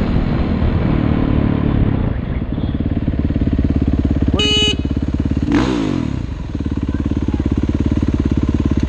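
Yamaha dirt bike's engine running at low speed, then settling into a steady, evenly pulsing idle about a third of the way in. A brief horn honk sounds about halfway through, followed by a quick throttle blip that falls back to idle.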